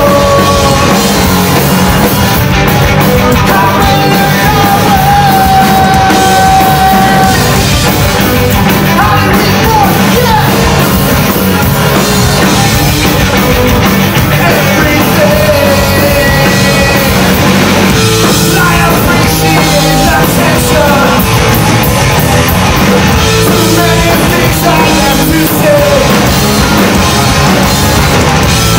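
A rock band playing live: electric guitars and drums, with a singer's voice over them, holding one long note a few seconds in.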